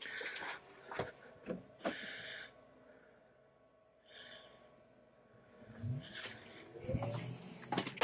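Faint scattered clicks and handling noises with breaths as a hand works the air conditioner's wall-unit controls, broken by stretches of near silence.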